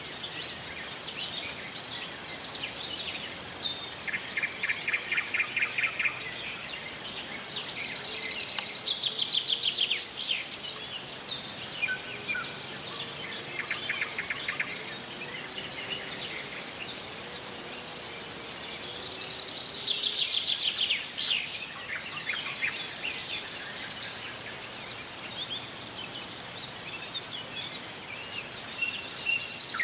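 Several birds singing and chirping over a steady background hiss, with a rapid, buzzy trill of about two seconds that comes back every ten seconds or so.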